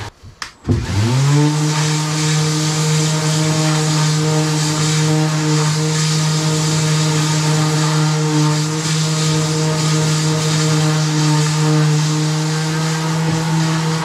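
Electric power tool motor, stopped for a moment, spinning up with a rising whine about a second in, then running steadily at full speed.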